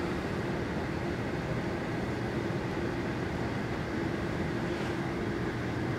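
Steady low rumble of a distant engine with a faint constant hum and no change in pitch.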